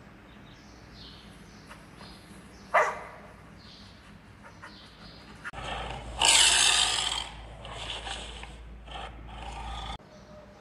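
Recorded animal calls from Google Search's 3D AR animals on a phone: a single dog bark about three seconds in, then from about halfway a tiger growling, with one loud roar followed by softer growls.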